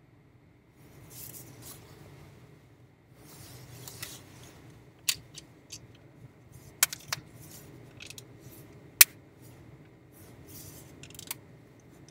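Rustling and a string of sharp clicks from something being handled close to the microphone, the loudest click about nine seconds in, over a faint steady hum.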